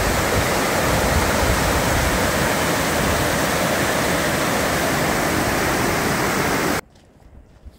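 Floodwater rushing down the concrete spillway channel of an overflowing reservoir loch, a loud steady rush of white water that cuts off suddenly near the end.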